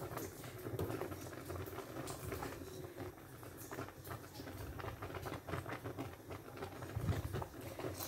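Owo soup, a starch-thickened palm-oil soup, bubbling in a pot: a steady run of small, irregular pops.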